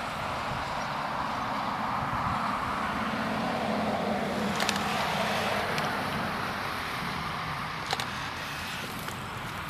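A car passing on the road, growing louder and then fading. There are two sharp clicks, one near the middle and one about eight seconds in.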